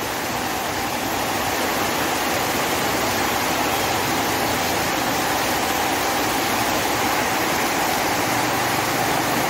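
Heavy rain pouring down, a steady even hiss with no let-up.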